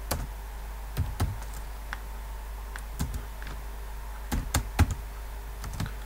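Computer keyboard typing: irregular key clicks, some single and some in quick runs of two or three, with short pauses between them, over a low steady hum.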